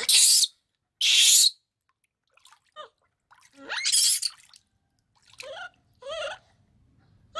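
Water splashing in a plastic basin in three short bursts, at the start, about a second in and about four seconds in. Near the end a baby monkey gives two short, wavering cries.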